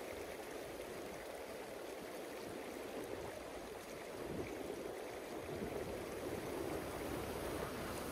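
Small mountain-stream waterfall rushing over rock: a steady wash of falling water that grows a little louder about five seconds in.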